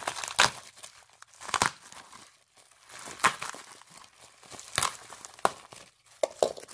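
Plastic comic book bags crinkling as bagged-and-boarded comics are handled and sorted, with about six sharp crackles of plastic spread through the crinkling.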